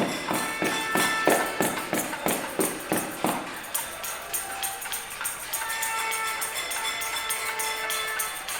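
Cacerolazo: many metal pots and pans being banged, a dense rapid metallic clatter. For the first three and a half seconds a louder even beat of about three strikes a second stands out; later, steady ringing tones sound over the clatter.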